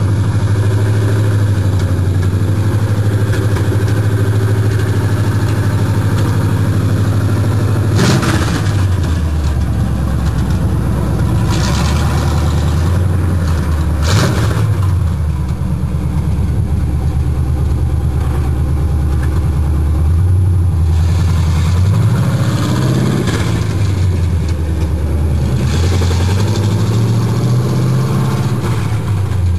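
1974 Chevy K10's 350 small-block V8 running through open headers with a loud, deep exhaust rumble. It holds steady at first, then revs up and drops back several times, from about eight seconds in, as the truck drives off.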